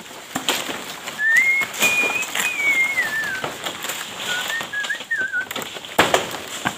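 Fan-palm (toko) fronds rustling and crackling as they are cut and handled, with a sharp snap about six seconds in. A long wavering whistle rises and falls from about one to three and a half seconds, and a shorter warbling whistle follows about four seconds in.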